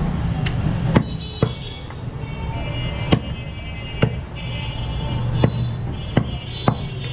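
Heavy butcher's knife chopping goat meat against a round wooden chopping block: about eight sharp knocks at irregular intervals, the loudest about a second in.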